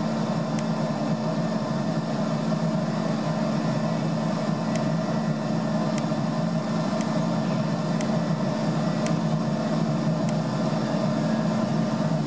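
Atlas Copco ZT 22 two-stage oil-free rotary tooth air compressor running loaded: a steady hum with a low and a mid tone held constant. Faint ticks come about once a second.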